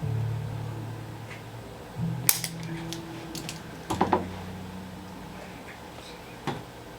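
Sharp cracks from a chiropractic adjustment: one about two seconds in, a quick cluster of several about four seconds in, and one more near the end, over a low steady hum.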